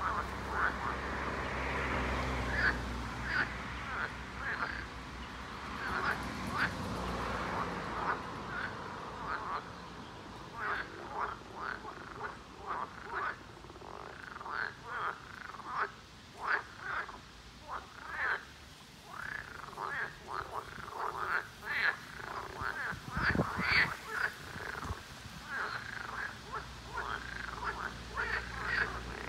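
A chorus of frogs giving breeding calls: short croaks repeated over and over, many voices overlapping.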